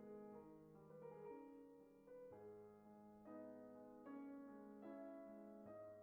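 Soft, slow piano music, quiet, with sustained notes and chords changing about once a second.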